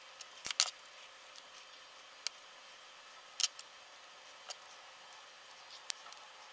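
Scattered small clicks and taps of hard mould parts and a metal hex key being handled and fitted together: about six sharp clicks, a quick pair just after half a second in and a louder one around three and a half seconds.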